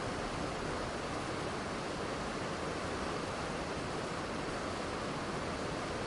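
Waterfall rushing steadily, a continuous even roar of falling water with no changes.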